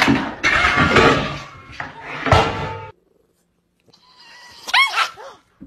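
Cats jumping and scrabbling, with repeated thumps and clatter as they land and knock against things. Near the end, a cat gives a short yowl that rises and falls in pitch.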